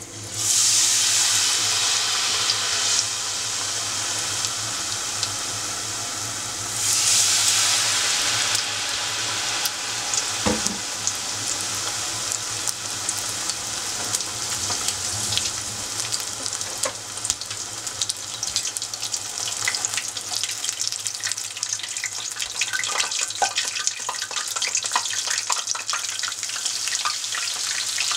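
Tempura frying in hot oil in a pot: a loud sizzle rises as battered pieces go into the oil, surges again about seven seconds in, then settles into a steady crackling sizzle with many small pops.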